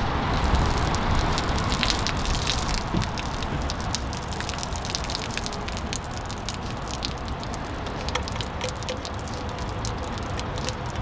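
Hot pasta water pouring from a pot through a small mesh strainer and splashing onto asphalt: a steady stream with many small spatters.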